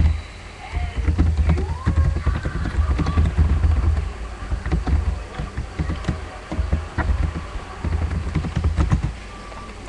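Typing on a computer keyboard: a quick, irregular run of key clicks and dull thumps that stops about a second before the end.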